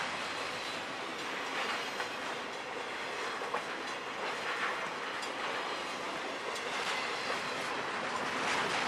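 CSX freight train's cars rolling past at speed: a steady rushing rumble of steel wheels on rail, broken by occasional sharp clacks.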